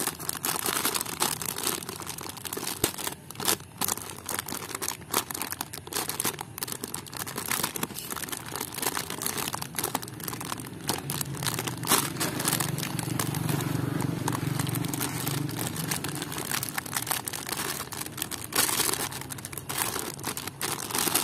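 Thin clear plastic packaging bag crinkling and crackling as hands pull it open and work a toy out of it, in irregular rustles throughout.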